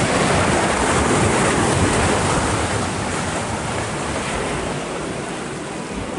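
Water rushing and churning in the ride boat's concrete flume channel as the boat moves along it: a steady, loud rush that eases slightly in the second half.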